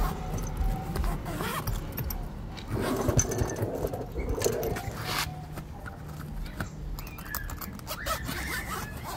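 A fabric rolling tool bag being handled and opened: irregular scrapes and rustles of the nylon and a zipper being pulled, with a longer noisy stretch a few seconds in.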